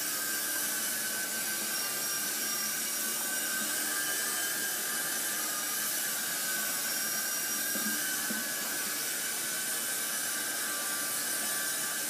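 Kingco electric RC helicopter flying and hovering, its motor and rotor making a steady high whine.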